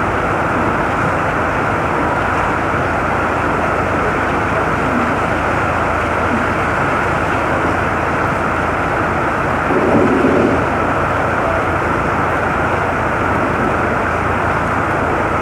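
Heavy rain pouring down in a steady, dense hiss, with a brief louder swell about ten seconds in.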